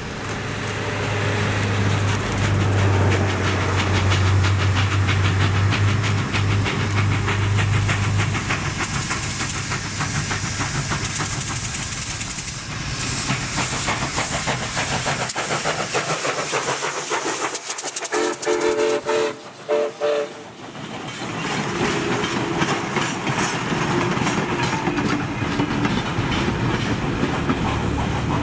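Steam locomotive No. 643 passing close. Its six-chime boiler-tube whistle sounds a long low blast for about the first eight seconds. Then come the hiss of steam and the clickety-clack of the wheels and cars over the rail joints as it goes by, and a run of short whistle toots about two-thirds of the way through.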